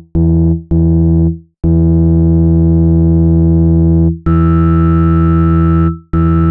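Synthesized low tone of about 165 Hz, rich in overtones, made to shake water out of a wet phone speaker. It plays as loud pulses: two short blasts, then a long held one, then another of nearly two seconds with a higher steady tone added, and a fresh blast starting near the end.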